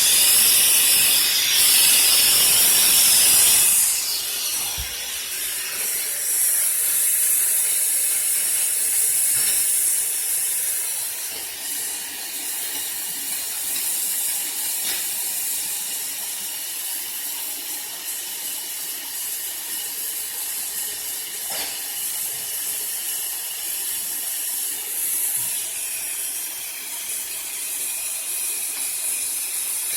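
Compressed air hissing steadily out of a sprinkler system's inspector's test port while the piping empties of air and no water has arrived yet. The hiss is loud at first and drops to a quieter, steady rush about four seconds in.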